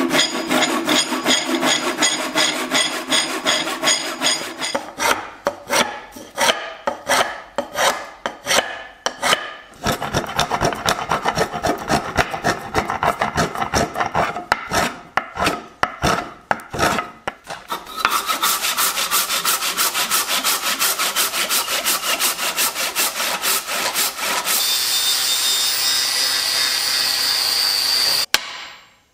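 Wooden hammer handle being shaped by hand, with repeated scraping and rasping strokes on the wood: fast and close together at first, then slower separate strokes, then fast again. From about two-thirds of the way in a steady power-tool sound takes over, and near the end a higher steady whine as an angle grinder's flap disc works the steel hammer head.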